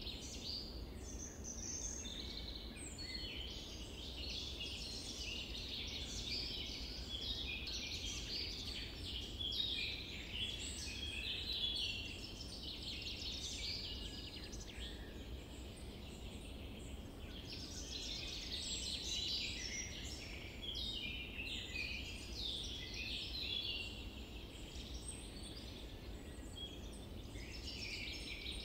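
Birdsong: many small birds chirping and singing in a dense, overlapping chorus over a steady low rumble of outdoor background noise.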